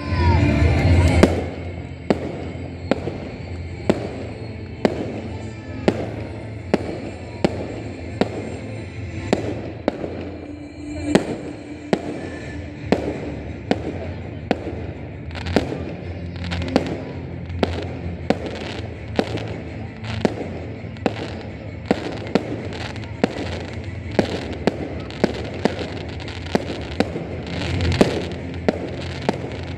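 Aerial fireworks firing a steady series of sharp bangs, about three every two seconds, with one heavy, louder burst right at the start.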